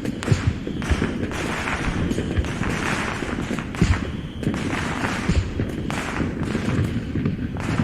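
Fireworks sound effect: a dense run of aerial shell bursts, with low booming thumps and crackling bursts overlapping one another.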